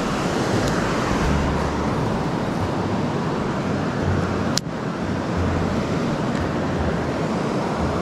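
Creek water rushing over rocks, a steady hiss, with wind buffeting the microphone. A single sharp click about four and a half seconds in.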